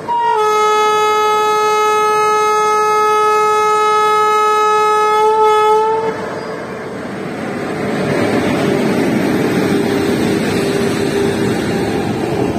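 Horn of a WAP7 electric locomotive sounding one long steady blast for about six seconds, then cutting off abruptly. After the horn stops, the locomotive and its coaches roll past close by, and the rumble of wheels on rail builds and holds.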